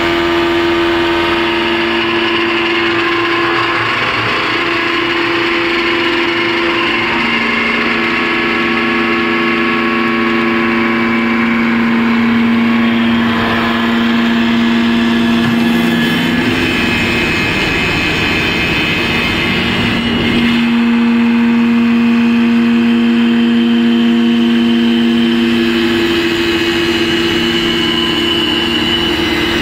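Automatic wood lathe turning a wooden chair leg: the spindle and cutter head run with a steady hum over the noise of the cut. The hum steps between a few pitches as the cutter head works along the piece, and turns rougher and noisier for a few seconds a little past halfway.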